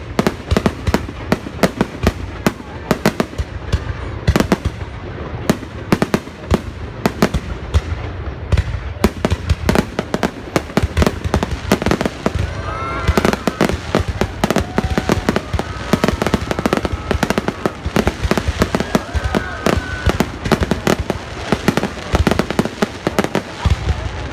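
Fireworks going off continuously in a dense, rapid barrage of bangs and crackles. Some pitched, gliding sounds run through the middle of the barrage.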